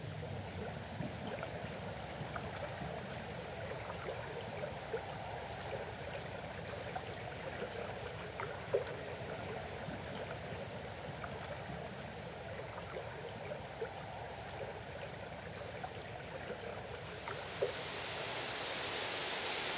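Shallow stream trickling among sticks, with scattered small drips and splashes. Near the end a steady hiss rises and takes over.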